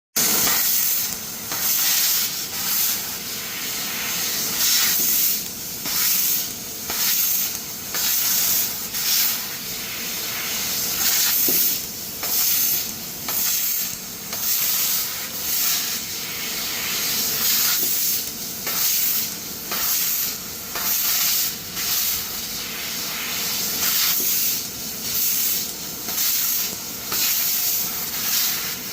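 CNC laser cutter cutting steel plate: a loud hiss of cutting gas and sizzling metal that swells and drops about once a second, over a faint steady machine hum.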